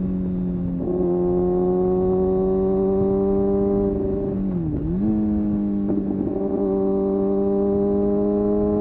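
Kawasaki ZX-6R's inline-four engine running at a steady cruising pitch while riding. Its pitch dips briefly and recovers about a second in. Near the middle it dips deeper and swings back up a little higher, as the throttle is eased off and reopened.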